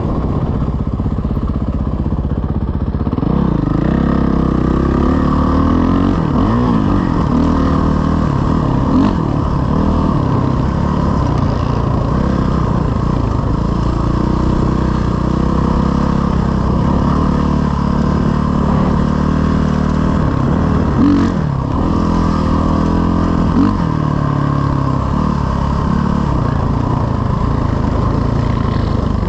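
Dirt bike engine under way, revving up and down again and again as the rider shifts and throttles, close to the microphone.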